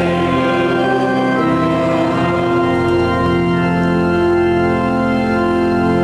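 Church organ playing sustained chords.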